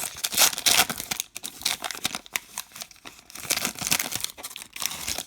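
A baseball card pack wrapper being torn open and crinkled by hand, with irregular crackling that comes and goes.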